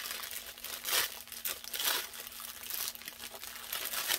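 Makeup brush set packaging crinkling and rustling as it is handled, in irregular bursts that are loudest about one and two seconds in.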